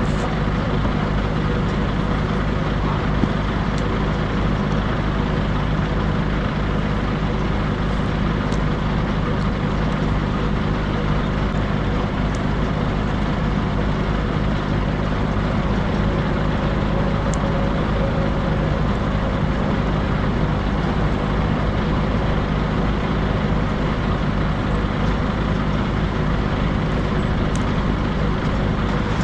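A motor engine running steadily at an even speed, with a few faint light clicks.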